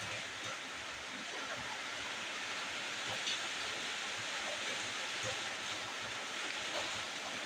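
Steady sizzling hiss of chicken cooking in a pan, with faint scattered crackles.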